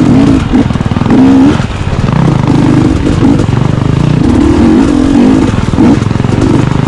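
Dirt bike engine being ridden on a trail, its revs rising and falling over and over as the throttle is worked.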